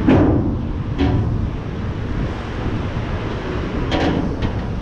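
Wind and rolling rumble on the microphone of a moving bicycle, with a few sharp knocks and rattles as the bike jolts over bumps: one at the start, one about a second in, and two close together near the end.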